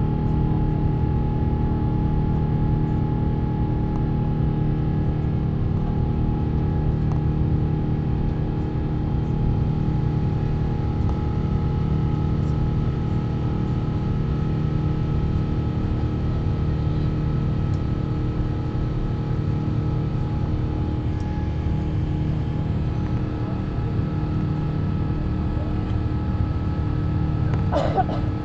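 Airbus A350-1000's Rolls-Royce Trent XWB turbofan engines heard from inside the passenger cabin: a steady low rumble with several constant engine tones. A short sharp sound comes near the end.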